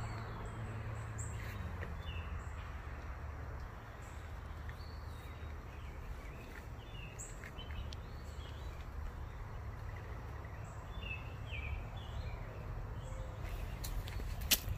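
Scattered short bird chirps over a steady low outdoor rumble, with a few sharp clicks near the end.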